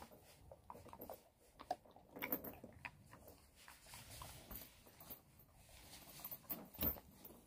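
Faint, scattered ticks and light scrapes from a chained dog nosing and licking at scraps on a wooden deck.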